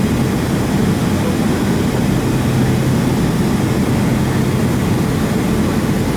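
Steady cabin noise of a Boeing 757 taxiing: a low, even engine hum under a constant rush of air.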